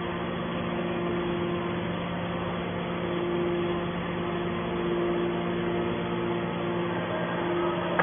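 Hydraulic scrap metal baler's power unit, its electric motor and pump running steadily, a constant hum with a couple of held low tones.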